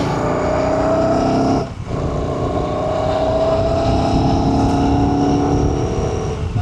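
Royal Enfield Shotgun 650's 648 cc parallel-twin engine accelerating, its note rising. About a second and a half in the sound dips briefly for an upshift, then climbs again in the next gear.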